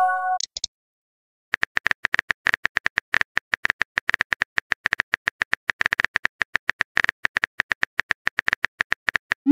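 Keyboard typing click sound effects from a texting app, a rapid even stream of about eight clicks a second as a message is typed out. A short multi-note chime sounds at the start, and a quick rising pop begins right at the end.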